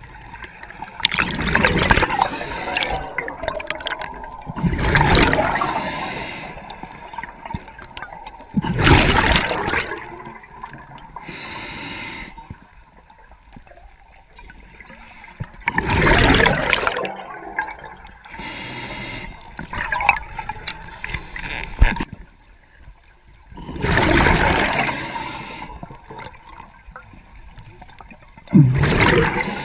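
Underwater breathing of a scuba diver: exhaled bubbles rush and gurgle out of the regulator about every four seconds, with a quieter hiss of inhalation between them.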